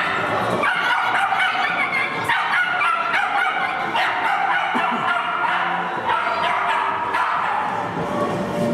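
Small dog barking in quick, high-pitched yaps, one after another almost without pause.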